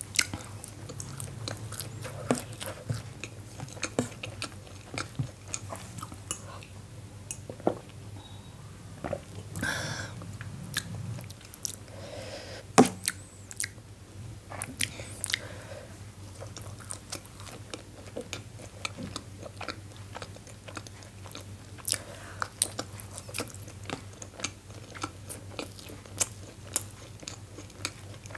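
Close-miked chewing and biting of soft steamed momos (dumplings), with irregular sharp mouth clicks and a louder click about 13 seconds in.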